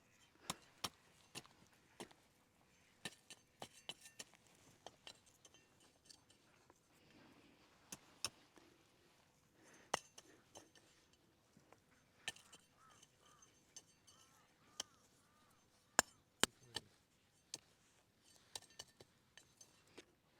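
Scattered sharp clicks and light clinks of hard objects, coming irregularly about one or two a second, the loudest one about 16 seconds in.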